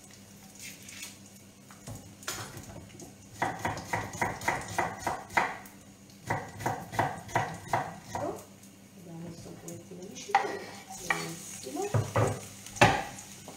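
Kitchen knife chopping on a wooden cutting board: two runs of quick, even strokes about six a second, then a few separate, louder knocks near the end.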